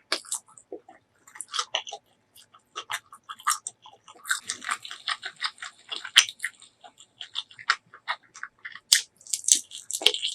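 Close-miked eating sounds: a person biting and chewing food, with sharp crunchy crackles and wet mouth clicks. The bites come thickest about halfway through and again near the end.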